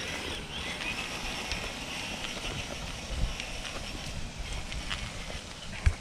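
Outdoor woodland ambience: a steady high-pitched chatter of wildlife, over low rustling and handling rumble, with a sharp thump near the end.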